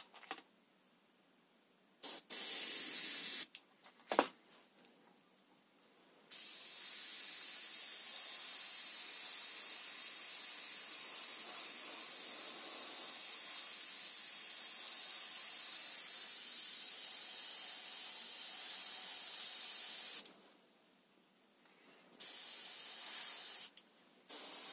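Airbrush spraying paint in a steady hiss: a short burst about two seconds in, then one long pass of about fourteen seconds, then two short bursts near the end.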